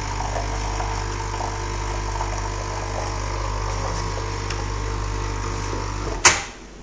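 Nescafé Dolce Gusto Mini Me capsule machine brewing, its pump running with a steady buzzing hum. About six seconds in, a sharp click, and the pump stops.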